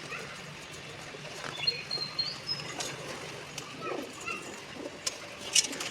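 Small birds chirping in short high calls, with scattered sharp ticks and taps.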